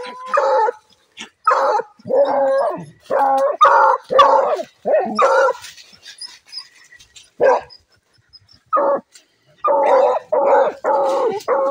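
Hunting dogs barking and yelping in quick succession at a burrow, baying at a paca holed up inside. The barks come in a fast string, pause for a couple of seconds with a lone bark or two, then pick up again near the end.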